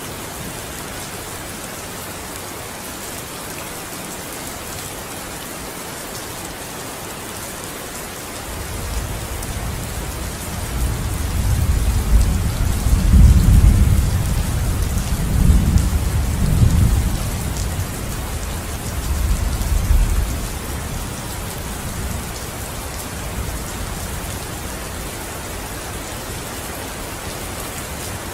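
Steady rain hissing throughout. About a third of the way in, a deep rolling thunder rumble builds, peaks several times, and fades out about two-thirds of the way through.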